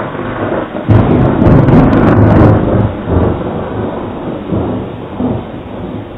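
Thunder: a loud crackling clap about a second in, followed by a deep rumble that rolls on and slowly fades.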